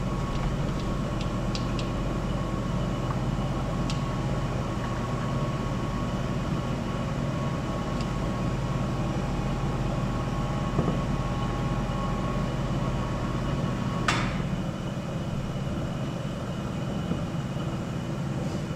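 Steady mechanical hum with a few light metal clicks and one louder knock about fourteen seconds in, as a Roots blower is worked into place on a Detroit Diesel 4-53 engine block; the deepest part of the hum drops away just after the knock.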